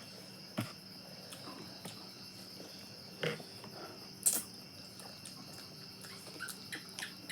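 Eating sounds: a few separate chewing smacks, the loudest about four seconds in, then a quicker run of small mouth clicks near the end. Underneath is a steady high trill of crickets.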